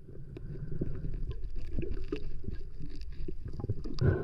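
Underwater sound of a diver handling a speared wahoo: a rough low water rumble with scattered short clicks and knocks, and a louder thump about four seconds in.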